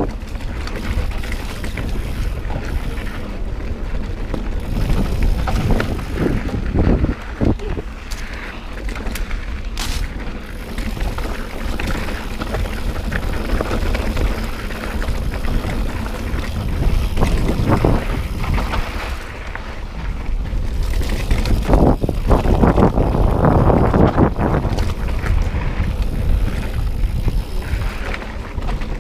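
Wind buffeting the mountain biker's POV camera microphone, over the rumble of knobby tyres rolling fast on dirt singletrack, with scattered knocks and rattles as the bike goes over bumps and roots.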